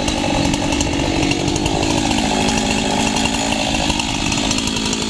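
Husqvarna chainsaw running steadily, its engine note shifting a little partway through as the saw is brought to the base of the trunk.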